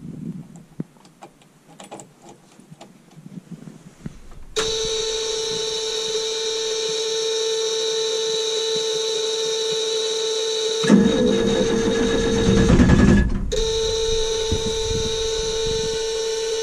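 Faint clicks of the key and switches, then from about four seconds in a dash warning buzzer sounds a steady tone as the ignition is switched on. About eleven seconds in the starter cranks the cold International DT466 diesel, with the buzzer still going and cutting out briefly.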